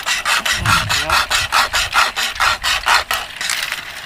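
A survival kit's flexible pocket saw, pulled back and forth through wood by its two handles, rasping at about four strokes a second. The strokes stop about three and a half seconds in.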